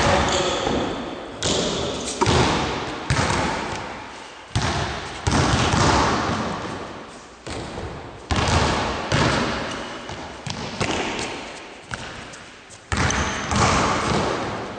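Basketballs bouncing on a wooden gym floor and thudding off the backboard and rim during shooting practice, one sudden knock about every second at irregular intervals, each ringing out in the echo of a large sports hall.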